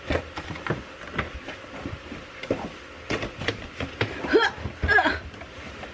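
Light clicks and knocks of grocery packages being handled, with two short vocal sounds about four and five seconds in.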